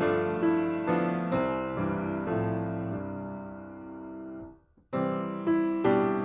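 Piano music: chords struck one after another and left to ring. About four and a half seconds in it fades and breaks off for a moment, then the playing resumes.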